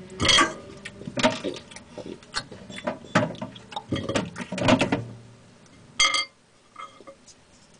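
Irregular knocks, taps and clatter from hands moving toys and the camera about, with a short high squeak about six seconds in.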